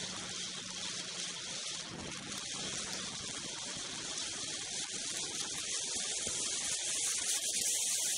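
Steady rushing hiss of wind and snow past a moving snowmobile, with a faint low engine hum under it in the first few seconds. The hiss grows louder toward the end as the sled speeds up.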